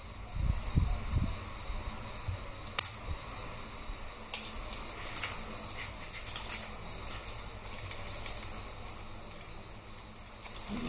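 Hands handling paper scraps and scissors on a cutting mat: a few soft bumps, one sharp click about three seconds in, then scattered light paper rustles and small ticks. A steady faint hiss runs underneath.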